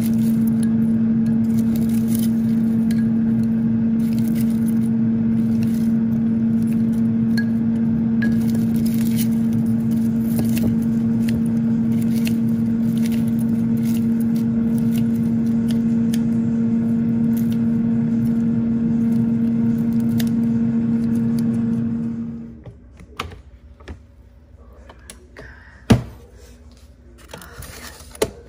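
Air fryer oven running with a steady, even hum that cuts off abruptly about three-quarters of the way through. Faint snips and clicks follow, with one sharp loud click near the end.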